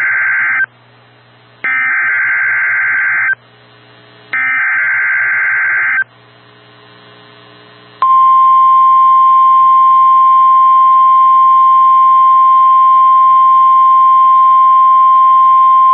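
NOAA Weather Radio Emergency Alert System SAME header: buzzy bursts of data tones. The tail of the first burst is followed by two more about a second apart, each under two seconds long. After a two-second gap, the steady 1050 Hz warning alarm tone begins and holds; it signals that a warning, here a severe thunderstorm warning, is about to be broadcast.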